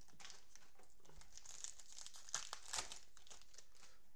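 Plastic wrapper of a Prizm football card cello pack crinkling as it is torn open and the cards are pulled out: a run of crackles that is loudest a little past the middle and dies away near the end.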